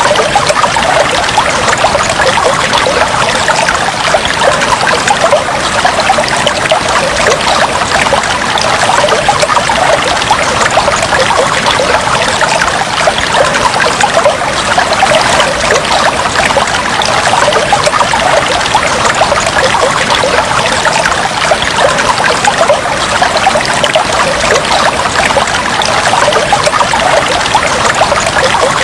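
Aquarium water trickling and bubbling steadily, a continuous dense splashing patter.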